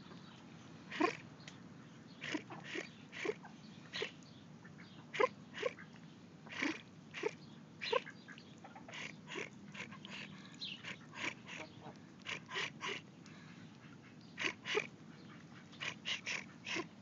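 Short, sharp chirping calls imitating a Muscovy hen, made by a person to a Muscovy drakelet. They come in irregular runs of about two a second, mostly high-pitched, with a few lower notes.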